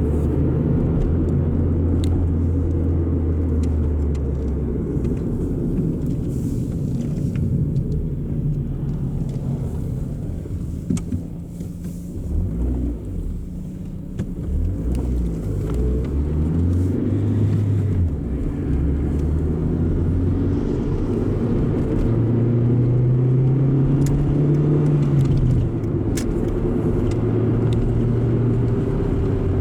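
Chrysler PT Cruiser 2.0-litre four-cylinder engine running through a new muffler, its exhaust note rising and falling with the revs. The pitch wavers about halfway through and climbs to a higher held note near the end before falling back.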